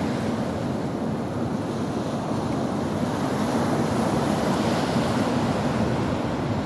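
Sea waves washing onto the shore, a steady rushing surf that swells a little midway, with some wind on the microphone.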